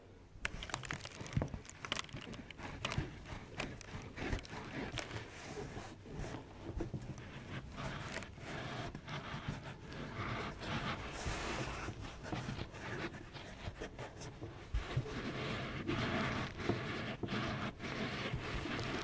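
Close-miked rubbing and scraping with a busy stream of small clicks and crackles, with no talking.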